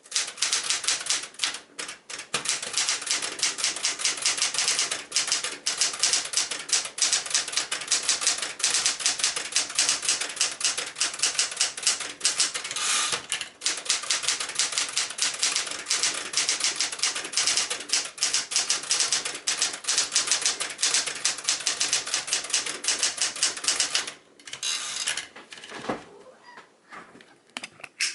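Smith-Corona Galaxie Twelve manual portable typewriter being typed on rapidly, a continuous run of sharp keystrike clacks. About 24 seconds in the typing stops, leaving a few scattered clicks and knocks.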